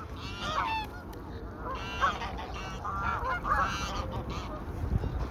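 Ducks calling: a string of short honking calls, with a run of several close together partway through.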